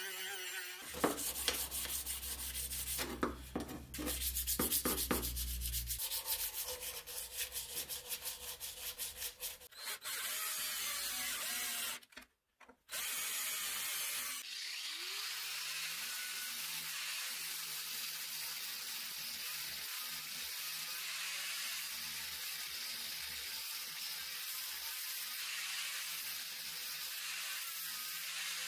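Rotary tool with a sanding drum grinding a leaf-spring steel knife handle in quick repeated strokes. After a short break, a drill spins up with a rising whine and runs steadily, boring into the steel.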